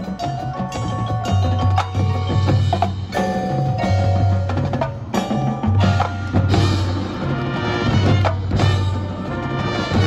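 Marching band music with mallet percussion prominent: struck keyboard notes and sharp wood-block-like clicks over held low bass notes that come back about every two seconds.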